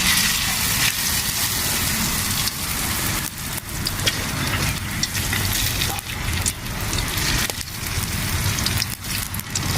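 Wood cooking fire crackling and hissing steadily, with many small scattered pops, under a low rumble.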